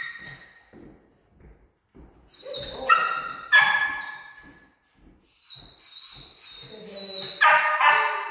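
A dog vocalizing in high-pitched yips and whines, in a few separate cries about two to four seconds in and a longer run in the last three seconds.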